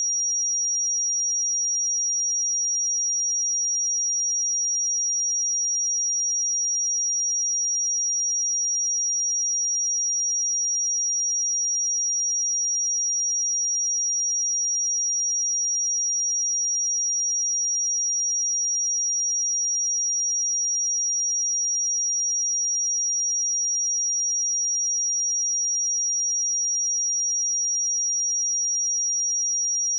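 A pure sine-wave test tone at 5703 Hz, a single high-pitched steady tone held at an even level.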